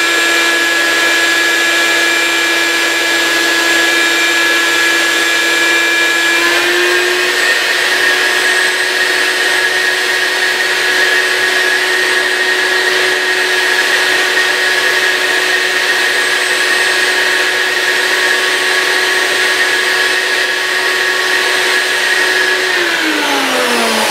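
Vacuum cleaner motor running steadily with a high whine as it pulls a hot plastic sheet down over a window plug on a vacuum-forming table. Its pitch steps up about six seconds in as the sheet seals over the perforated platen and chokes the airflow. Near the end it is switched off and winds down in a falling whine.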